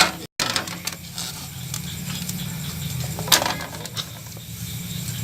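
Small clicks and light clatter of handled tools and parts over a steady low hum, with one sharper knock about three seconds in.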